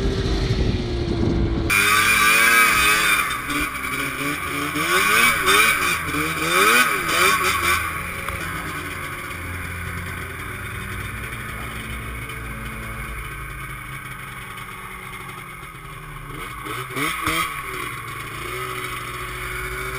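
Snowmobile engine running under throttle in deep snow. A steady engine note for the first two seconds gives way abruptly to a much closer engine revving up and down repeatedly for several seconds. It settles into a quieter, steadier run after about eight seconds, with another short spell of revving near the end.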